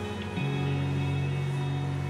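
Background music: sustained held notes, changing to a new chord about half a second in.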